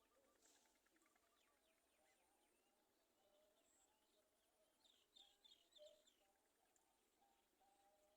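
Very faint bird calls and chirps in the background, with a short run of slightly louder high chirps about five seconds in.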